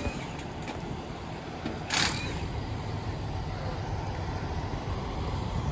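Steady low rumble of an idling diesel truck engine, with a short burst of hiss about two seconds in.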